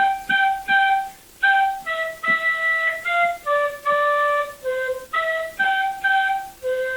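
A flute playing a simple melody of short separate notes, ending on a longer held note.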